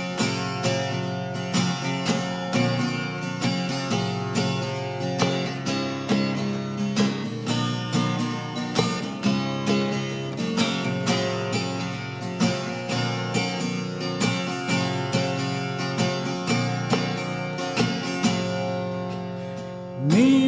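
Acoustic guitar strummed in a steady rhythm, about two strokes a second, in an instrumental break. Near the end a chord is left ringing and fading, and a singing voice enters.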